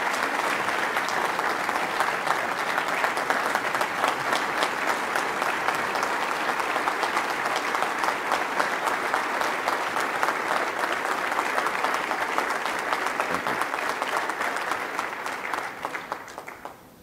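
Audience applauding steadily, dying away about sixteen seconds in.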